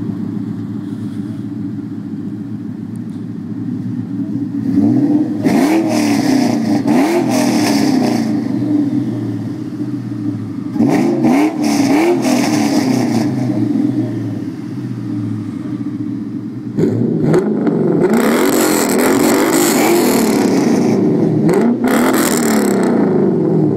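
Loud V8 car exhaust idling and then revving hard in quick repeated blips, in three bursts about five, eleven and seventeen seconds in, the last one the longest.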